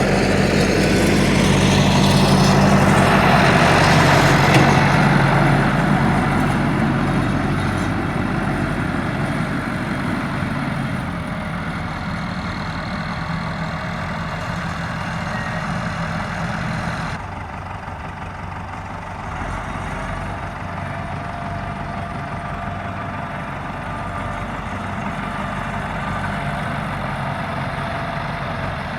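Massey Ferguson 3070 tractor's diesel engine running, loudest in the first few seconds and then fading steadily as it carries on.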